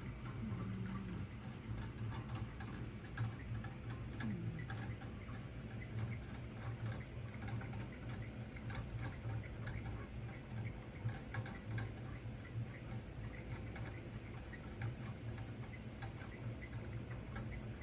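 Ceiling fan running: a steady low hum with fast, uneven ticking clicks throughout. Two faint short whistling tones come about a second in and again around four seconds in.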